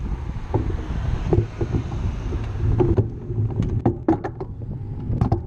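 Wind rumbling on the microphone of a camera on a moving bicycle, with scattered sharp clicks and rattles from the bike, more frequent in the second half.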